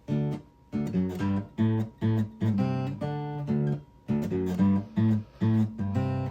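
Instrumental music: short strummed chords on a plucked string instrument in a stop-start rhythm, with brief gaps between them.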